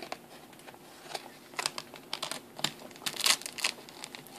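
Hands handling a leather iPad keyboard case while pressing the iPad into place in it: irregular scraping, rubbing and clicking noises, densest in the second half.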